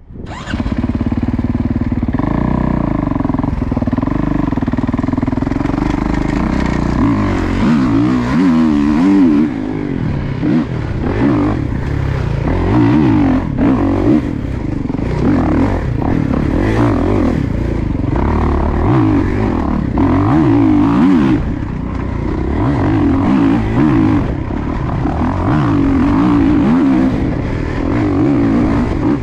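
Dirt bike engine heard from the rider's chest: fairly steady for the first several seconds, then revving up and down over and over as the bike is ridden.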